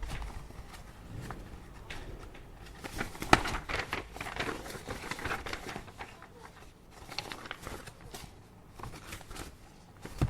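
Desk work with paper: irregular rustling of paper handling mixed with scattered small clicks, and one sharp knock on the desk about three seconds in.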